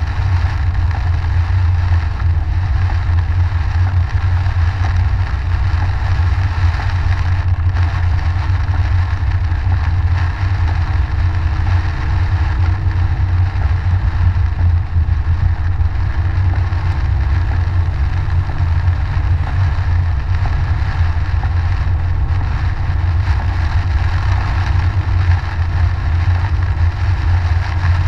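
Car driving on a wet highway, heard from inside the cabin: a steady, loud low rumble of engine and tyres on the wet road, with an even hiss above it.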